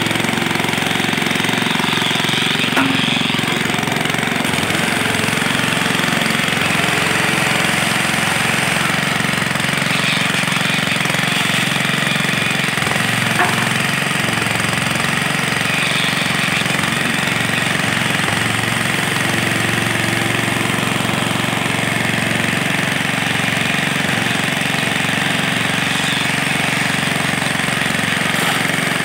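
Small engine of a concrete needle vibrator running steadily, with an even buzz, while its flexible shaft and poker are worked through freshly poured concrete.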